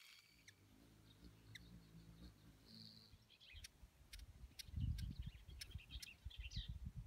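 Hummingbird at a feeder: a run of sharp, high chip notes from about halfway in. Underneath is a low hum, with a burst of low rumbling about five seconds in that is the loudest part.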